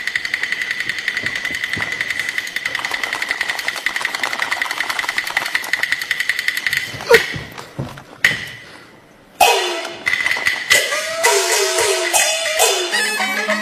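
Peking opera percussion ensemble of drum, gongs and cymbals accompanying a stage fight. It plays a fast, dense roll of strikes for about seven seconds, then breaks into a few loud single crashes and a brief pause, and resumes with ringing gong strokes that fall in pitch.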